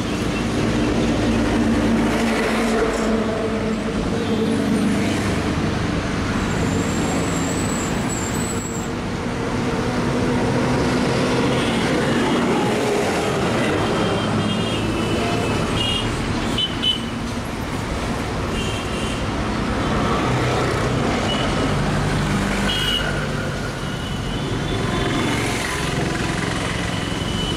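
EMU electric local train approaching slowly on the bridge tracks: a steady rumble of traction motors and wheels mixed with traffic-like noise. Short high-pitched tones come and go in the second half.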